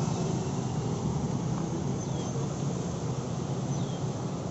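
Steady outdoor street ambience, mostly a low rumble of passing traffic, with a few faint high chirps.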